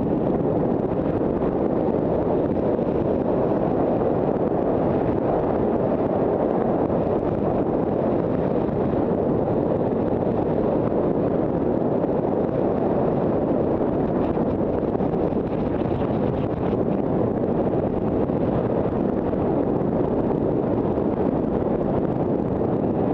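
Steady rushing wind noise on the microphone of a moving skier.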